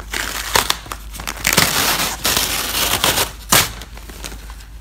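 Peel ply being pulled off a cured fiberglass-epoxy laminate: a crackling, ripping sound with several sharp snaps as the fabric lets go of the resin.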